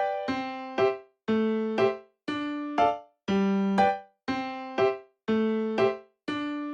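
Electric-piano-style melody in a short repeating figure: a held note and then two quick notes, about once a second.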